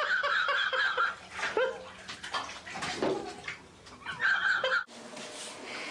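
Bath water splashing and sloshing in a filled bathtub as a cat thrashes in it, mixed with a small child's high-pitched squeals. The sound breaks off abruptly near the end to a faint steady room noise.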